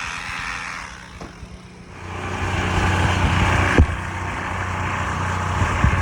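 An engine starts running steadily about two seconds in, with a couple of sharp knocks, one just before the four-second mark and one near the end.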